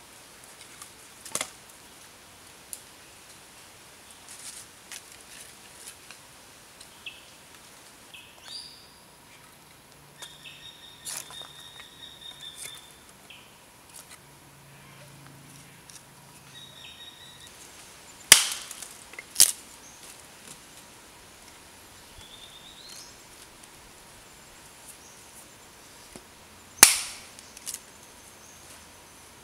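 Sticks of wood clacking against each other as they are dropped and packed upright into a clay furnace: a few sharp knocks, the loudest a pair past the middle and one near the end. Birds whistle in the background.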